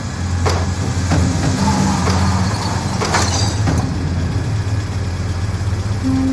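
Off-road vehicle engine running steadily as it drives along a rough forest track, with several sharp knocks in the first four seconds.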